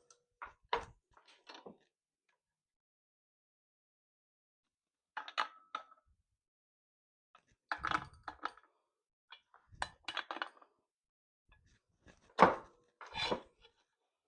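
Scattered metal clanks and knocks from tools and parts being worked on a tractor's clutch, in about five short clusters, some with a brief metallic ring.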